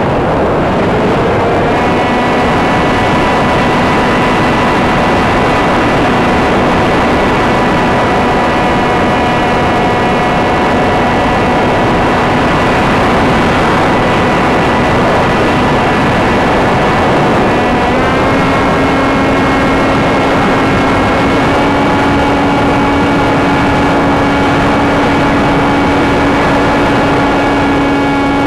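Electric motor and propeller of a Sky Surfer RC glider, heard from the onboard camera: a steady whine over a loud rush of wind. The motor's pitch rises slightly about two seconds in and steps up again a little past halfway, as the throttle is nudged up.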